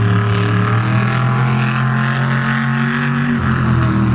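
Monster truck engine running at high revs under throttle, then dropping in pitch about three and a half seconds in as the revs fall.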